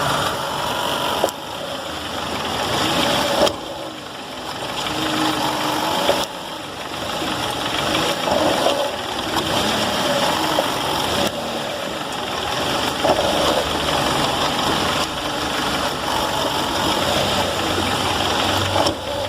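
Fiat Freemont's engine idling steadily, with a couple of short knocks.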